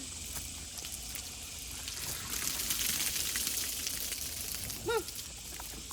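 Water running and splashing, a hiss that swells through the middle and then eases off. A chicken calls once near the end.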